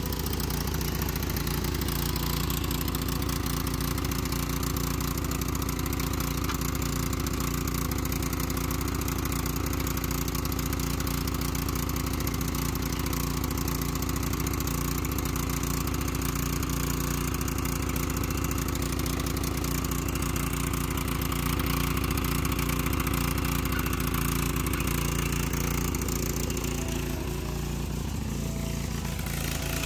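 Small gasoline engine of a Craftsman riding lawn tractor, a Kohler Command, running steadily with an even note that shifts slightly near the end.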